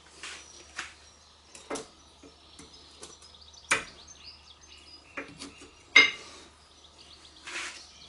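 Sharp metallic clicks and clacks of a new rear brake pad being pushed into the caliper bracket and its pad clips, with two louder clacks about four and six seconds in. A short scuffing rustle comes near the end.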